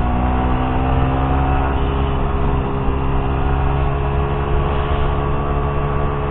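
Suzuki GSX-R150's single-cylinder engine running steadily under way, its pitch rising slightly over the first couple of seconds and then holding.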